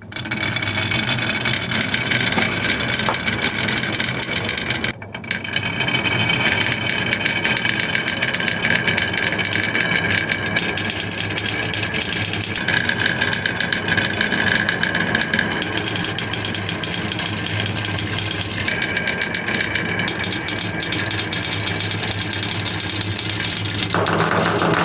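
Marbles and toys rolling down a wooden HABA marble run, a continuous rolling rumble that starts suddenly and dips briefly about five seconds in.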